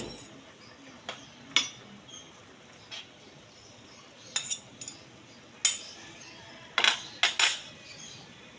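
Metal spoon clinking and scraping against a cooking pan while stir-frying noodles: a string of sharp, irregular strikes, the loudest bunched in the second half.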